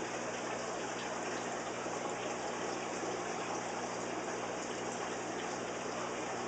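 Steady rush and splash of water running through a multi-tank saltwater aquarium system, with a low steady hum underneath.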